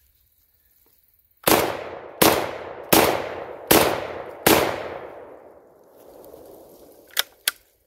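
Black Aces Tactical Pro Series semi-automatic 12-gauge bullpup shotgun firing five quick shots about three-quarters of a second apart, each ringing out briefly, emptying the magazine so the bolt locks open after the last. Two sharp clicks of the gun being handled near the end.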